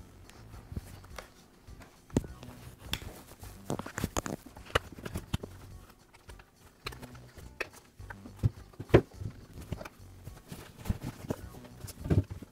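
Irregular clicks, taps and rubbing of hands working the tight rubber boot off the front of a Makita reciprocating saw's housing, rolling it back over itself. Louder knocks come just after twelve seconds in, as the saw is laid down on the wooden workbench.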